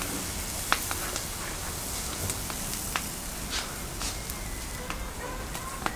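Thin pancake batter sizzling as it is poured onto a hot domed iron saj griddle: a steady hiss with scattered sharp crackles and pops.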